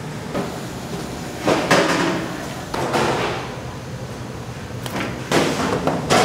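Commercial kitchen sounds: a few short clatters and knocks of stainless-steel trays and utensils over a steady hum of kitchen equipment.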